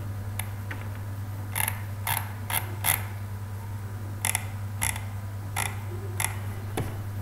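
Computer mouse clicking about ten times at uneven intervals, over a steady low hum.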